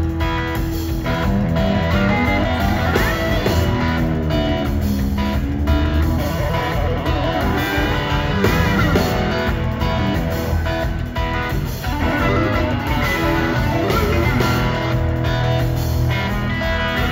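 Live band playing an instrumental passage led by electric guitar, with bent, gliding notes over a steady bass and drums.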